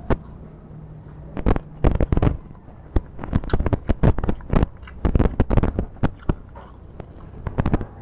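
Close-miked eating by hand: chewing and lip-smacking heard as irregular clusters of sharp clicks and crackles, with short pauses between.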